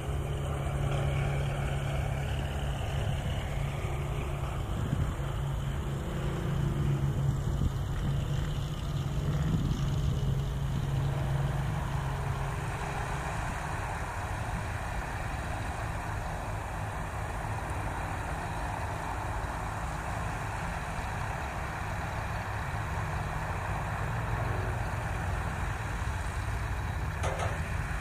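Goodyear GZ-20A blimp's twin piston engines running steadily at low power on the ground, a low, even drone.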